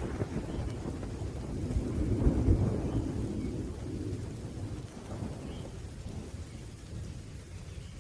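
Thunder rumbling low, swelling about two seconds in and then fading away, over the steady hiss of rain.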